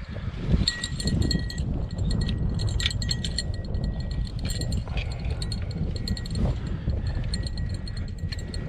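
Wind buffeting the microphone as a steady low rumble, with scattered faint ticks and clicks.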